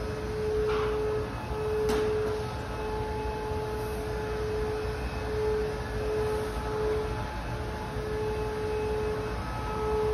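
A steady mid-pitched hum with a low rumble underneath; the hum briefly drops out a few times, and there is a faint click about two seconds in.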